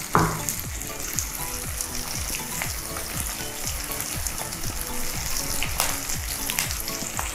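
Sliced mushrooms with chopped garlic, basil and rosemary frying in oil in a nonstick pan, a steady sizzle of fine crackles.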